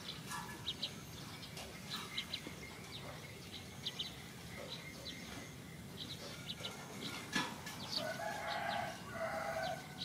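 A rooster crowing near the end, in two drawn-out parts, over small birds chirping throughout, with one sharp click about seven seconds in.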